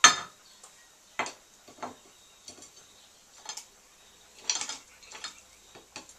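A tablespoon clinking and tapping against a mug as chocolate chips are spooned into the cake batter. There is one sharp knock at the start, then about seven lighter, irregular clicks.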